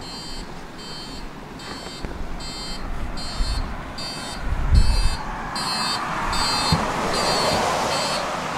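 Tram door warning signal: a high electronic beep repeating about every two-thirds of a second as the doors are about to close. Under it the tram's low running rumble swells, with a heavy low thump about five seconds in.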